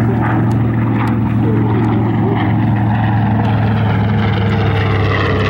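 Grumman TBM Avenger's radial engine and propeller droning as it flies past, the pitch slowly falling as it draws away.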